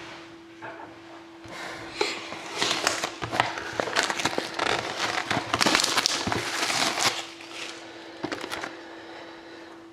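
Plastic wrapping crinkling and crackling as it is handled and torn off a sealed trading-card box, loudest in the middle few seconds.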